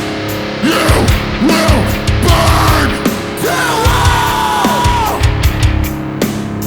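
Heavy band playing live: distorted guitars, bass and pounding drums, with a yelled vocal.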